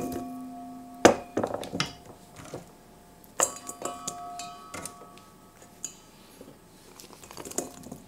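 Ingredients tipped into a stainless steel mixing bowl: a few sharp knocks, each leaving the metal bowl ringing for a moment, with softer clicks and rustles in between.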